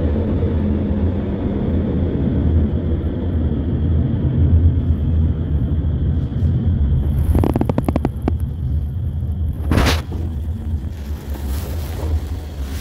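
Subway car running, heard from inside: a steady low rumble with a faint high whine that stops a little past halfway. A quick run of clicks follows, then a short loud burst of noise near the end.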